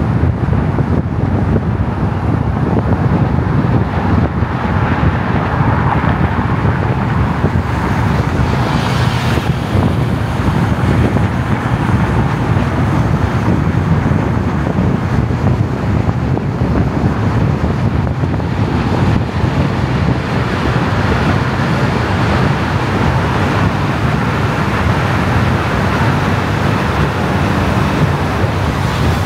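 Steady road noise of a car driving in traffic, a continuous low rumble of tyres and engine with some wind noise. A brief brighter hiss rises and fades about nine seconds in.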